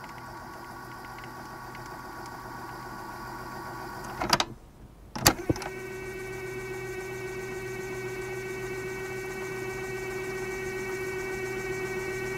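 Steady electronic hum and whine of several held tones, a VHS-style tape sound. About four seconds in it clicks and drops out for under a second, then returns with a sharp click and a lower steady tone added, growing slowly louder.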